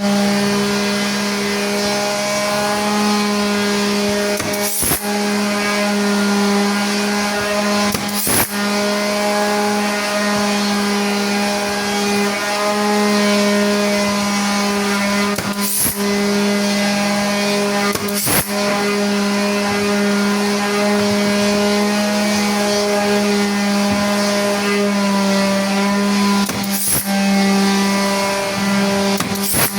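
Electric woodworking machine running at a steady speed with an even motor hum, broken by a few brief sharp clicks.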